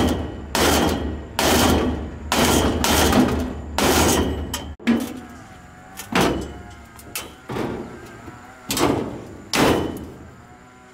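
Metal banging on the steel sides of an old Daewoo pickup's cargo bed: first a steady series of hard blows, about one a second, then, after a cut, a long metal pole handled against the bed, knocking and scraping with a ringing of sheet metal.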